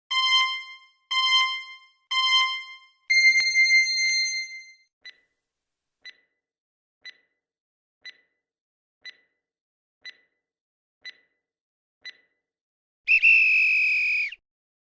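Electronic quiz-timer sound effect: three short beeps a second apart and a longer fourth tone, then faint ticks once a second for about eight seconds, ending in a loud electronic alarm tone of just over a second that signals time is up.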